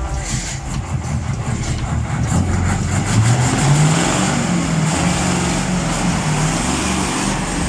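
Heavy engine of a converted school-bus-style passenger bus revving as the bus pulls away and drives past; the engine note climbs in pitch over a couple of seconds partway through, then holds with small rises and dips.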